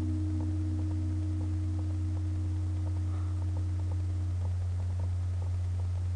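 Acoustic guitar's final chord ringing out and slowly fading, gone about four seconds in, over a steady low hum.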